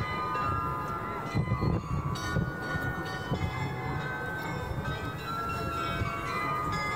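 Bells of the Munich Rathaus-Glockenspiel playing a tune: struck notes ring on and overlap, with a new note starting every so often.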